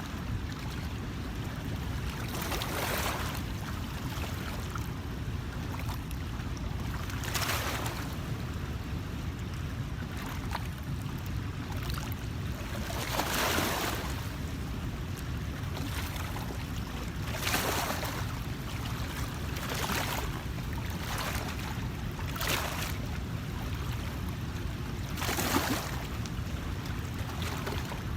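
Outdoor water sounds on a river: a steady low rumble of wind and water, with a brief splash or swish of water every few seconds.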